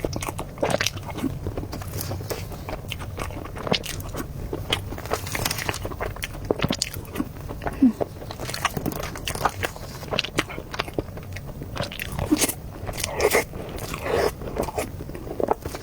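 Close-miked eating: a person biting and chewing durian mille-crepe cake, with many small irregular mouth clicks and smacks.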